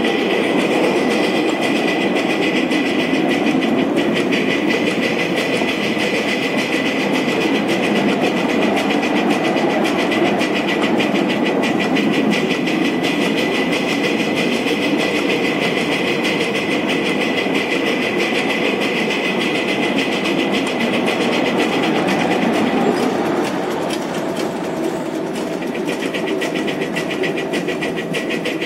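Little Engines 2-6-0 ride-on live steam locomotive running steadily along the track, its wheels rolling on the rails, easing slightly a little over three-quarters of the way through.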